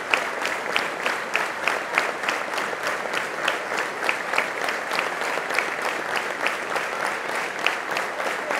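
Stadium crowd applauding steadily, with one pair of hands clapping close by about three times a second.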